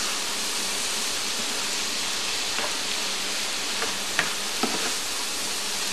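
Cubes of beef liver with spices sizzling in a frying pan, a steady hiss, while a spoon stirs them with a few light scrapes.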